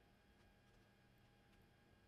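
Near silence: faint room tone with a thin steady electrical hum.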